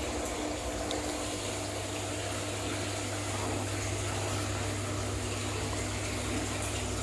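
Steady hum of an aquarium pump running, with a low mains-type drone and the sound of water moving.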